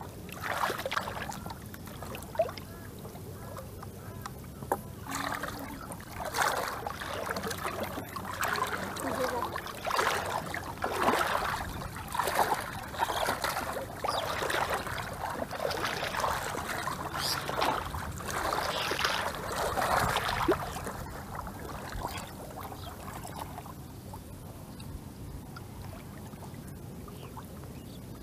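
Shallow floodwater sloshing and splashing around legs and hands as a fine monofilament gill net is worked and fish are picked out of it, with irregular splashes for most of the stretch that settle down about three quarters of the way through.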